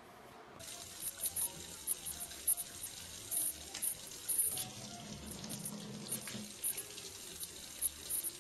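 Kitchen faucet running a thin stream into a stainless steel sink, starting suddenly about half a second in, with irregular splashing as a cat drinks from the stream.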